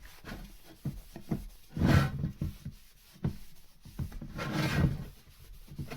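A cloth or rag wiping down a part in two long rubbing strokes, about two seconds in and again between four and five seconds, with light knocks of the part being handled in between.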